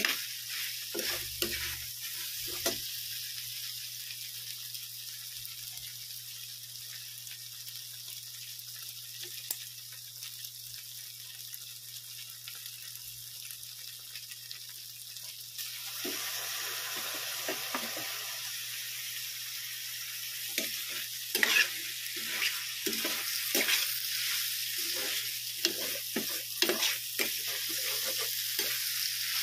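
Pork belly and tofu sizzling in a stainless steel pan, with a metal spatula scraping and turning them in quick strokes near the start and again through the last third. A little past halfway the sizzle jumps up sharply for a couple of seconds as dark sauce is poured into the hot pan.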